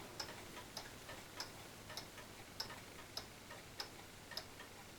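Pendulum wall clock ticking steadily and faintly, a louder tick a little under twice a second with softer ticks between.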